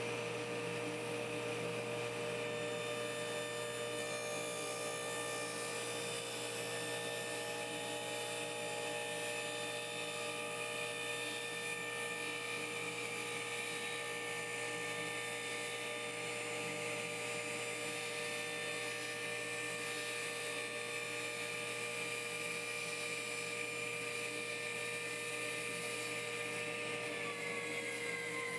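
Dust collector and table saw motors running with a steady whine made of several pitched tones. Near the end one motor is switched off and its tones fall in pitch as it winds down, while the other keeps running.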